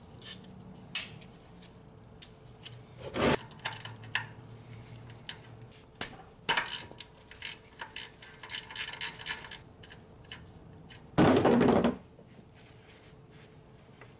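Metal hand tools and parts clinking and knocking under a car during an oil change, with a louder knock about three seconds in. Near the end comes one loud noisy burst of under a second.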